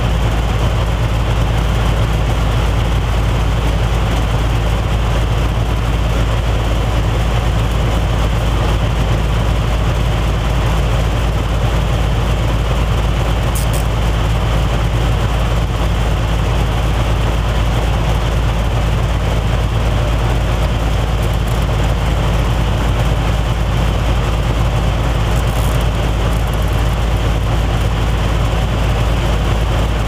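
Loud, steady low hum of running machinery, unchanging throughout, with a couple of faint high clicks.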